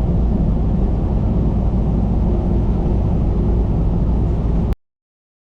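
Semi truck's diesel engine running with a steady low rumble, cut off suddenly about four and a half seconds in.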